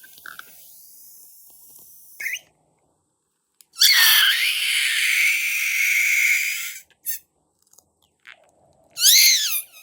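Air squealing out of a balloon's stretched neck: a long, hissy, high squeal of about three seconds with a wavering pitch starting about four seconds in. It is followed near the end by short squeaks that rise and fall in pitch.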